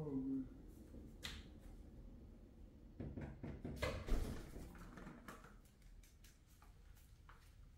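Handling noise: scattered light clicks and knocks, with a burst of rustling and clicking about three seconds in that lasts a second or so.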